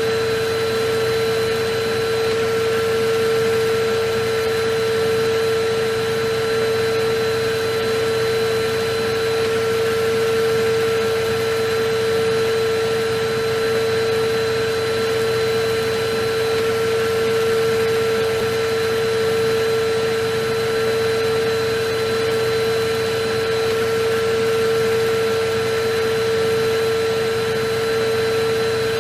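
Electric vacuum cleaner running steadily: an even hiss with a constant hum-like whine and no change in pitch or level.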